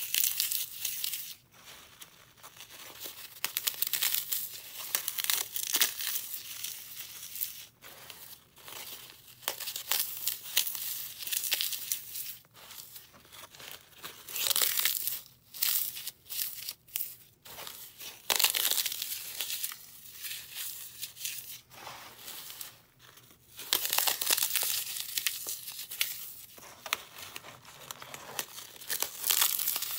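Hands crushing and rubbing dry floral foam dusted with baby powder and gym chalk: crisp crackling and crunching in bursts, with short pauses between handfuls.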